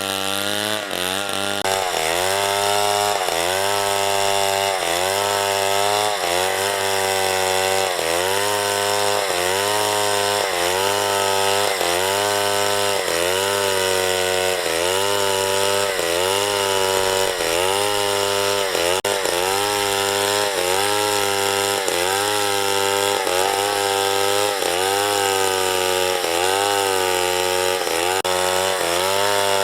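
Chainsaw cutting through wood, its engine pitch dropping under load and recovering about once a second as the saw rocks through the cut.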